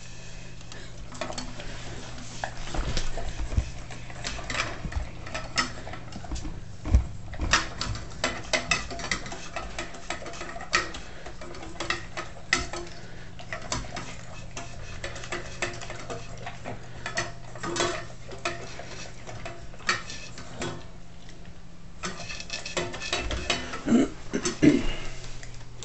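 Bernese Mountain Dog eating steak with gravy and kibble from a stainless steel bowl: sloppy chewing and lapping with frequent irregular clinks and knocks of food and tongue against the metal bowl. The knocks are loudest near the end.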